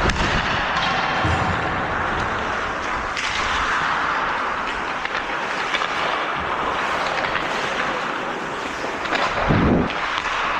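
Steady rink noise during ice hockey play: skates scraping the ice, low rumbling buffeting on the microphone, and a few faint clicks of sticks and puck.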